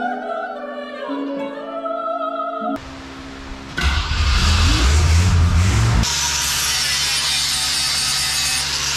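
Light plucked-string background music for the first few seconds, then an electric angle grinder runs up with a rising whine and grinds steadily on a small metal part.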